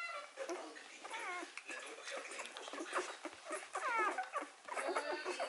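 Three-day-old Hovawart puppies suckling, giving short high squeaks and whimpers that rise and fall, the clearest about a second in and about four seconds in. Many small clicks of sucking run through it.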